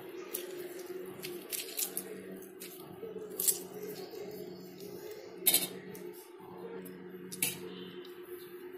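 Metal spoon stirring rice in a steel pan: soft scraping with a few sharp clinks and scrapes of the spoon against the pan, the loudest about five and a half seconds in. A steady low hum runs underneath.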